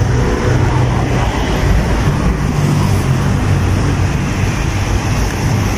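City street traffic: nearby vehicle engines running with a steady low hum over road noise.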